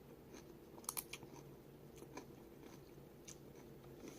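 Faint chewing of a mouthful of ramen noodles and pickle, with a few short crunchy clicks, two sharp ones about a second in.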